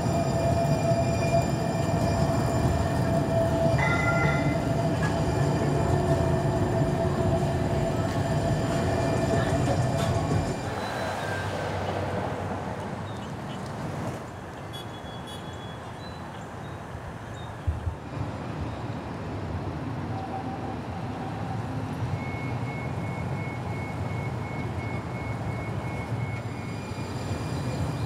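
Siemens S70 streetcar passing close by, its wheels on the rails and electric drive running with a steady hum for about the first ten seconds. Then quieter street sound, with a sharp click around the middle and a thin high steady tone for several seconds near the end.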